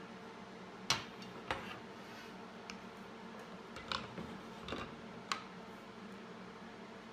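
Light clicks and taps of a metal layout rule and square being set down and shifted on a wooden board and tabletop, about six in all, the sharpest about a second in, over a faint steady hum.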